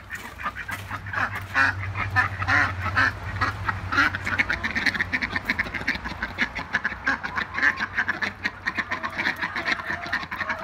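A small group of domestic ducks quacking continuously in quick runs of short quacks.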